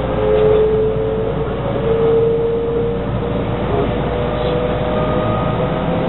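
JR West 223 series 2500-subseries electric train running, heard from inside the front car: wheels rumbling on the rails under a steady motor whine that climbs slowly in pitch over the first couple of seconds as the train gathers speed, then holds.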